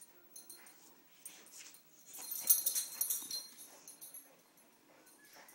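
A boxer chewing and mouthing a plush squeaker hippo toy, with a quick run of high squeaks about two seconds in.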